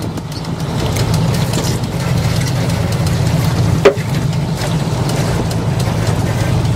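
A boat's engine running steadily at a low, even hum, with one sharp knock a little under four seconds in.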